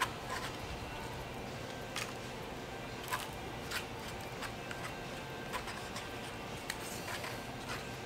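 Light clicks and taps of eating at a table, an eating utensil working in a small side cup and food being handled, a click every second or so over steady room noise.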